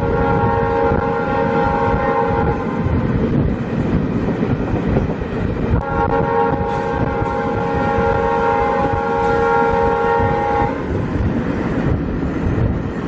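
WDM3D ALCO diesel locomotive's horn sounding twice, a short blast of about two seconds and then a longer one of about five seconds, with several tones sounding together. Under it the train keeps running steadily over the rails.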